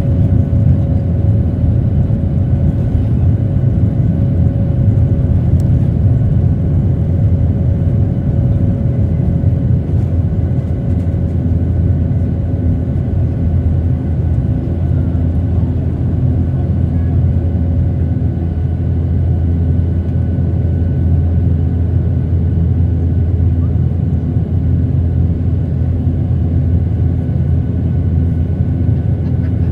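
Airbus A320 taking off, heard from inside the cabin by the wing: the jet engines at takeoff power make a steady low rumble, with a faint whine held above it that fades out around halfway through.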